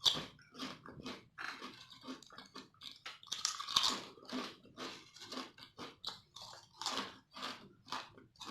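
Potato chips being bitten and chewed close to the microphone: a steady run of crisp crunches, about two to three a second, with a loud bite right at the start and another about halfway through.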